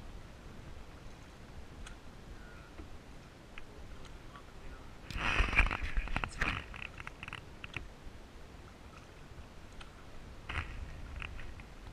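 Canoe paddle strokes in lake water: quiet swishing and dripping, with a louder burst of splashing about five seconds in.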